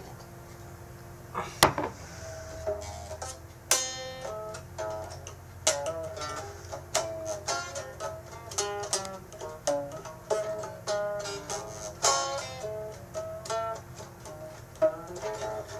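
A plucked string instrument playing a run of single notes, starting with a sharp strike about a second and a half in, over a low steady hum.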